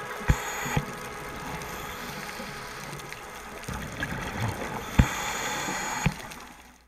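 Muffled underwater sound picked up through a camera housing: a steady hum of many held tones with four dull thumps, two early and two late, fading out at the very end.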